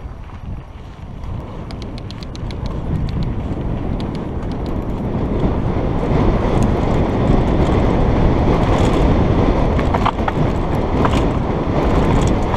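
Wind buffeting a helmet-mounted camera's microphone and knobby mountain bike tyres rolling fast over a dry dirt trail, getting louder as speed builds over the first few seconds. Scattered sharp clicks and rattles from loose stones and the bike run through it.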